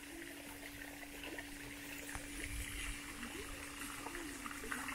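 Water from a small park fountain splashing and trickling into a pond, a steady low wash, with a faint steady hum and a few soft ticks over it.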